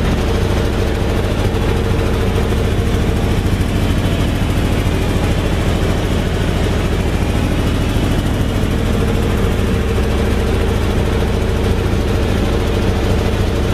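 1959 Chevy Viking tow truck's engine idling steadily.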